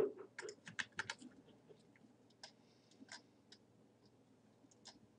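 Faint clicking from a computer keyboard and mouse: a quick run of clicks in the first second or so, then scattered single clicks.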